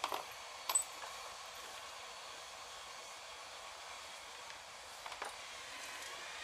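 Rear brake drum of a Nissan being gripped and handled on its hub, giving a few short metallic clicks and knocks: one at the start, one just under a second in, and a small cluster about five seconds in. A steady hiss runs underneath.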